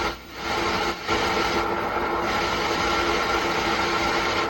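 A 120-watt MR MCR 125 solid-state amplifier hissing steadily through its speaker, a static-like rush like an FM radio left between stations, with a couple of faint steady tones in it. It briefly dips twice early on. The technician puts this hiss down to a fault in the parts on the amplifier's BT board.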